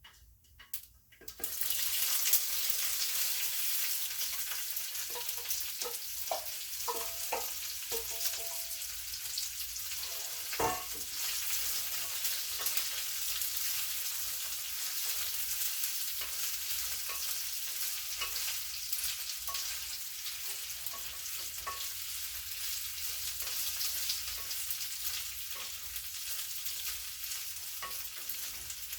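Steamed, chopped green beans tipped into hot oil with a mustard seed and urad dal tempering: a sizzle starts suddenly about a second in and carries on as steady frying. Short clicks through it as the beans are stirred in the pan.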